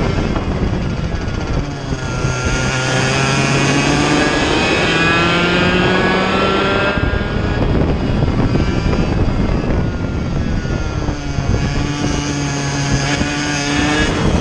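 Vortex Mini Rok 60cc two-stroke kart engine at race pace, heard from on board. Its pitch climbs steadily as it accelerates, drops away between about seven and eleven seconds in through a corner, then climbs again.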